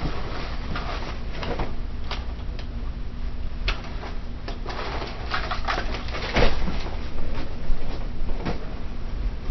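Gear being handled by hand: scattered rustles and clicks with a few louder knocks, about six and a half and near eight seconds in, over a steady low hum.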